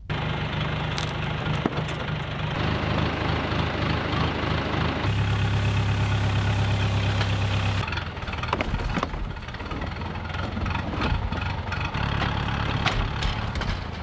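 Old farm tractor's engine running steadily, revving up for about three seconds midway as the front loader works. Metal fencing and junk then clatter as they are tipped into a wooden trailer.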